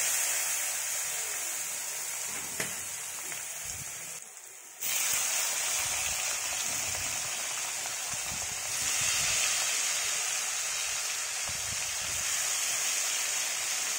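Paneer cubes sizzling as they fry in hot oil in a kadai, a steady high hiss. It drops away briefly about four seconds in, then comes back.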